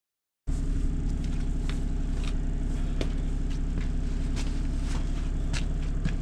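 Engine of a piece of heavy digging equipment running steadily, cutting in suddenly about half a second in, with scattered light clicks and scrapes over it.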